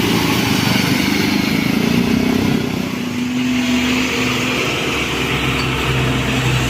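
Diesel bus engine pulling past on a climb, its pitch rising over the first three seconds or so. A deeper engine note builds up near the end.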